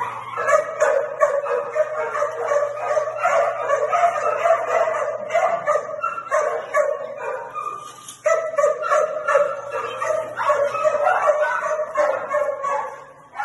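Many kennelled dogs barking and yipping at once, a dense, continuous overlapping din that dips for a moment about two-thirds of the way through. A steady low hum runs underneath.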